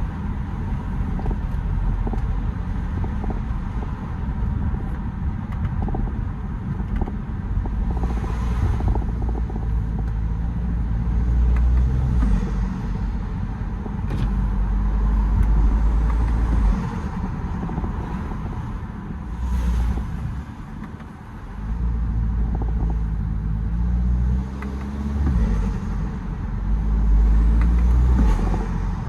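BMW E92 320d's N47 four-cylinder turbodiesel pulling and easing off several times, with brief turbo flutter hisses through an open air intake, about three times.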